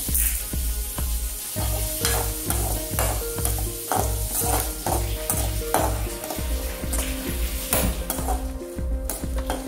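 Food frying in hot oil in an aluminium kadai, sizzling steadily while a spatula stirs it, with repeated short scrapes against the pan.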